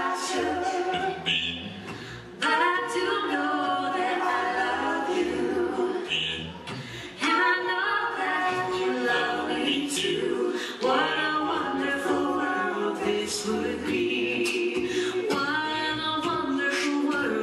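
Live a cappella group of mixed male and female voices singing a song in harmony through microphones and a PA, with a low bass voice underneath and sharp vocal-percussion hits keeping the beat. The sound comes in louder and fuller twice, about two and a half seconds in and again about seven seconds in.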